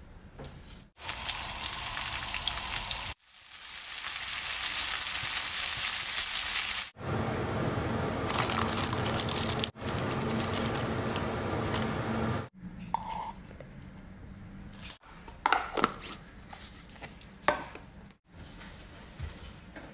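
Sesame-coated beef slices sizzling as they pan-fry in oil, heard in several short stretches cut one after another. For the last few seconds, lighter clicks and taps of food being handled and packed into a plastic lunchbox.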